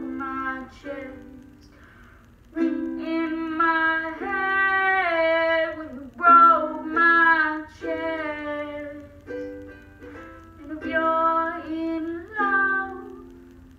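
A young woman singing slow phrases with long held, sliding notes while strumming a ukulele, with short breaks in the singing about two seconds in and again about nine seconds in.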